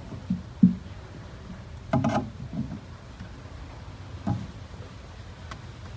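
Two kittens play-fighting, with soft thumps and scuffles as their bodies and paws bump the wooden box: two light knocks in the first second, a louder scuffle about two seconds in, and another thump a couple of seconds later.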